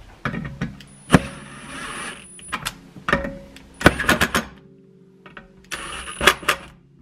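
Cordless impact driver (Milwaukee Fuel) running bolts into a snowmobile secondary clutch in short bursts: the motor whines and the hammer rattles in rapid strikes, about four times.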